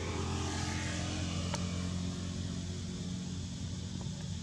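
A motor vehicle's engine running nearby with a steady low drone, with a brief rush of noise in the first second or so. A single sharp click about a second and a half in.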